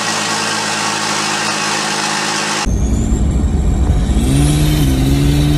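Turbocharged 4.0 L straight-six of a 1999 Jeep Cherokee XJ idling steadily. About two and a half seconds in it gives way to the engine heard from inside the cab on the road: a deep rumble, with the engine note climbing as it accelerates about four seconds in and a thin high whine rising in pitch.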